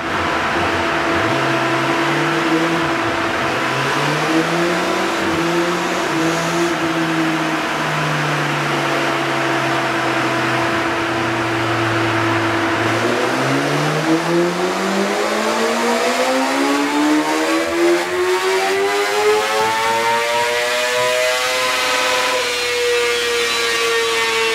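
2019 Kawasaki ZX-6R's 636 cc inline-four on a motorcycle dyno during a power run. It holds steady revs with a few small rises in pitch, then about halfway through makes one long, smooth full-throttle pull climbing in pitch for about eight seconds toward the top of the rev range, and eases off slightly near the end.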